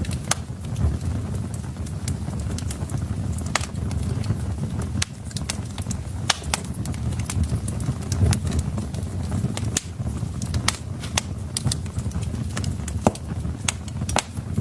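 Wood fire burning in a fireplace: a steady low rumble of the flames with irregular sharp crackles and pops of the burning logs, one louder pop about thirteen seconds in.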